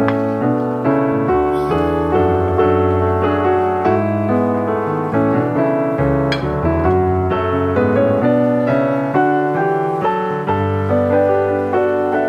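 Background piano music, a melody of evenly played notes.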